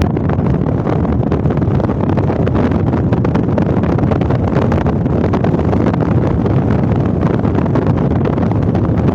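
Steady wind buffeting the microphone: a loud, even, low rumbling noise.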